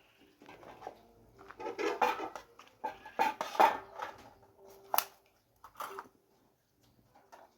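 Pots, dishes and utensils clattering and scraping irregularly for a couple of seconds, then a single sharp knock about five seconds in.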